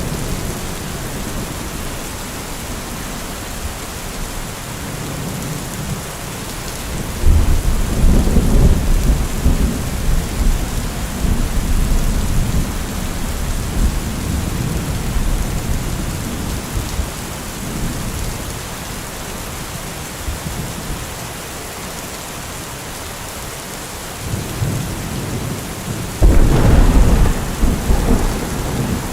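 Steady rain falling in a thunderstorm, with two rolls of thunder: one breaking suddenly about seven seconds in and rumbling on for several seconds, and another building and breaking near the end.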